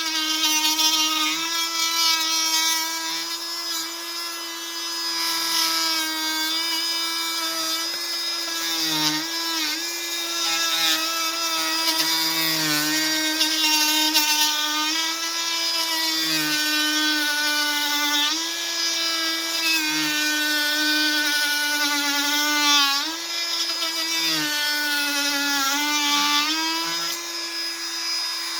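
Cordless Fein MultiMaster 500 oscillating multi-tool running at speed with a steady high buzz. Its pitch dips briefly several times as the blade is loaded in a cut, then recovers.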